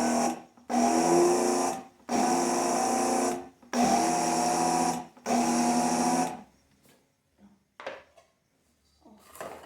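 Kitchen blender pulsed in four short bursts of about a second and a half each, its motor whining as it mixes baking powder into a thick cake batter. A few faint clicks follow near the end.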